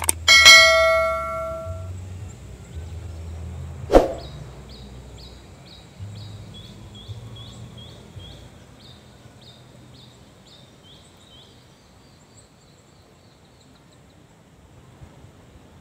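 A single bell-like chime rings out and dies away over about a second and a half. A sharp knock follows about four seconds in, then a run of quick high chirps, two or three a second, that fade away.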